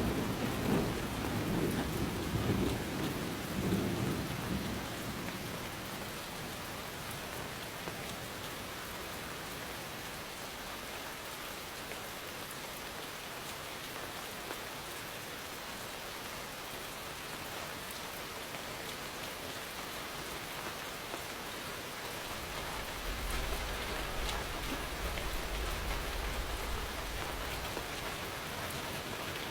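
Steady heavy rain falling, with a low thunder rumble dying away over the first few seconds and another deep rumble rolling in about two-thirds of the way through.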